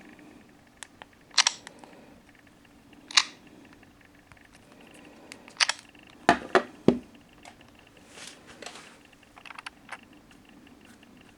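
Handling noise: scattered sharp clicks and taps, with three loud knocks in quick succession about six to seven seconds in.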